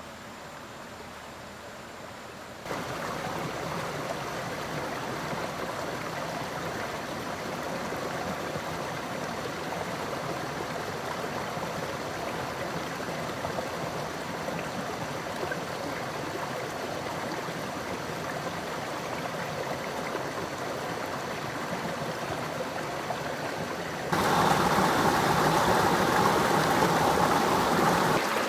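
Running water of a stream, a steady rushing and gurgling noise. It jumps abruptly louder about three seconds in and again near the end.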